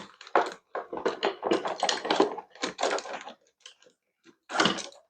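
Rummaging through a collection of small screws: rapid clicking and rattling of small hard parts in short bursts, with brief pauses and a louder rattle near the end.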